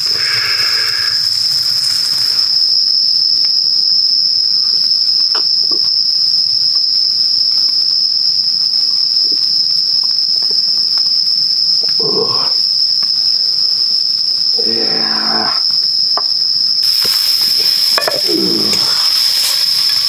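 Night insects singing one steady, high-pitched note. About three seconds before the end a sizzling hiss comes in, from fat in a cast-iron skillet over the campfire.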